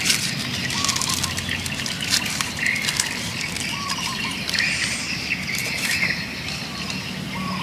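Fresh green leaves rustling and crinkling as they are pushed by hand into the open end of a green bamboo tube. Short, quiet chirping calls from birds can be heard in the background.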